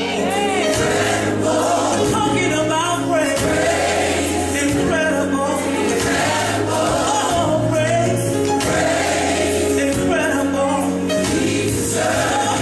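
Gospel music: a choir singing over a steady, full band accompaniment with a held bass line.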